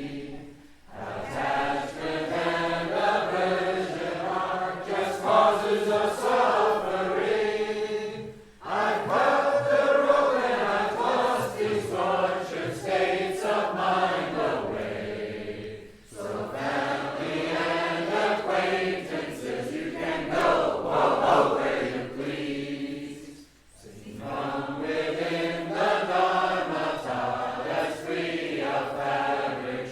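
Slow, melodic chanted singing of a Buddhist song, in long phrases of about seven to eight seconds, each ending in a short pause for breath.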